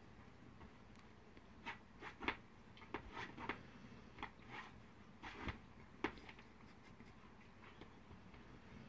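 A cat and a dog sparring on a cushioned couch: a few soft, irregular taps and scuffs of paws and claws on the fabric, clustered between about two and six seconds in, over a quiet room hum.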